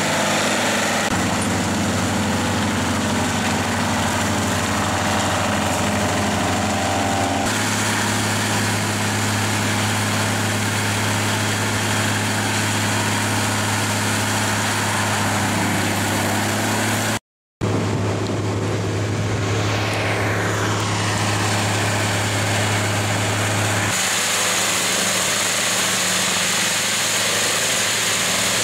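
JCB Fastrac tractor's engine running under load while its front-mounted FAE UMM/S 225 forestry mulcher shreds brush and small trees: a steady low engine drone under a dense chopping, shredding noise. The sound shifts abruptly several times and drops out for a moment a little past halfway.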